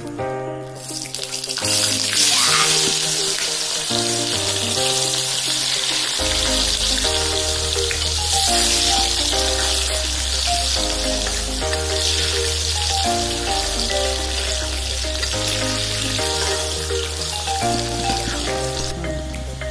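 Potato wedges deep-frying in hot oil in a kadai, a loud sizzle that starts about a second in as they are tipped into the oil and is strongest just after. Background music plays under it.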